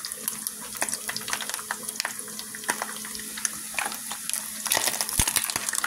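Turkey bacon sizzling and crackling in a frying pan, with a utensil scraping as the strips are turned; the frying grows a little louder near the end.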